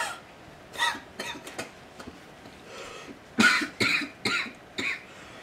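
A man coughing hard with his fist at his mouth, a few coughs at first and then a louder run of four, his body trying to reject the coconut water he has just drunk.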